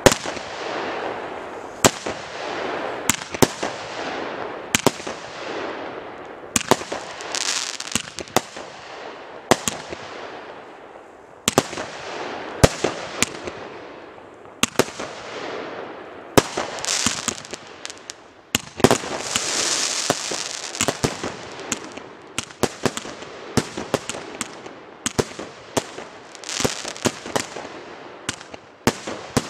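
A 79-shot fireworks battery firing shot after shot: sharp bangs about once or twice a second, each trailed by a rush of hissing noise from the rising comets and bursting stars.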